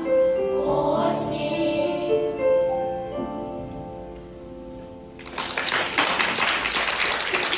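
A children's choir with a woman's voice sings the last notes of a song over instrumental accompaniment, and the final chord dies away. About five seconds in, the audience breaks into applause.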